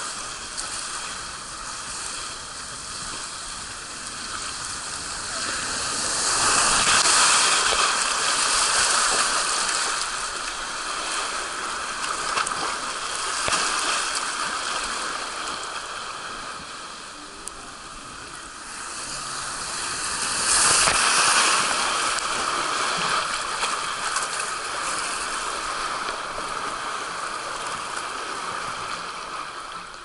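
Water rushing and splashing along an open water slide channel around a rider sliding down it, heard close up. It swells louder twice, about six seconds in and again about twenty seconds in.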